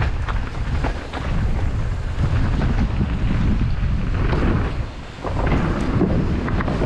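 Wind buffeting an action camera's microphone on a downhill mountain bike ridden at speed, with a low rumble from the tyres over dirt and wooden boardwalk slats and scattered rattling knocks from the bike. The rumble briefly drops about five seconds in.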